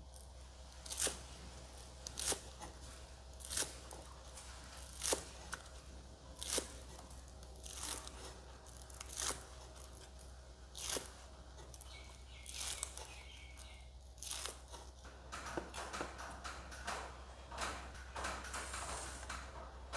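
Knife chopping scallion leaves on a wooden cutting board: a crisp cut and knock on the board about every second and a half, then quicker, lighter taps after about fifteen seconds.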